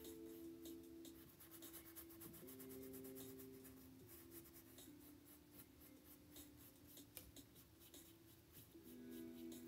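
Faint, quick scratchy strokes of a paintbrush on canvas as acrylic paint is dabbed on, under soft background music of slow held chords that change every second or two.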